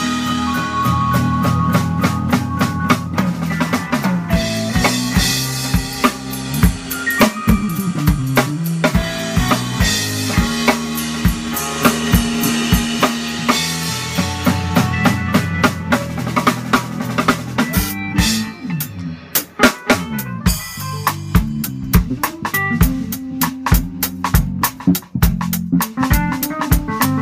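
Pearl drum kit played in a busy band groove, with bass guitar and digital piano under it. About two-thirds of the way through the drums thin out briefly, then the full band comes back in.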